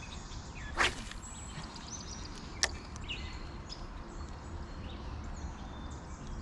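Outdoor ambience: a steady low rumble with faint bird chirps, a short whoosh about a second in and a single sharp click a little before the middle.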